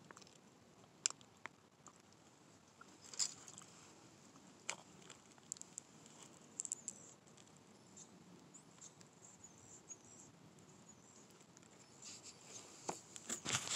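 Faint handling noise: scattered light clicks and rustles, a second or more apart, growing busier near the end.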